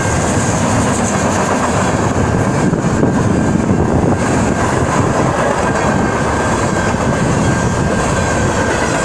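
Train rolling past close by: a loud, steady noise of railcar wheels running on the rails, with a thin steady high whine.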